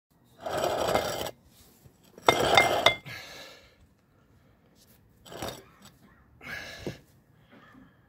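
Bursts of rustling, scraping noise with sharp metallic clinks. The loudest set, with three ringing clinks, comes about two and a half seconds in, and fainter scrapes follow.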